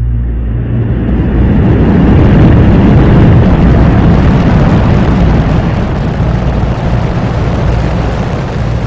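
Space Shuttle rocket engines at liftoff and ascent: a loud, continuous rumble from the solid rocket boosters and main engines, swelling over the first two seconds and then holding steady.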